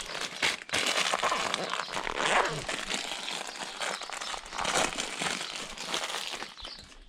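Packaging crinkling and rustling as a new outboard fuel filter is handled and unwrapped, in irregular swells of crackle.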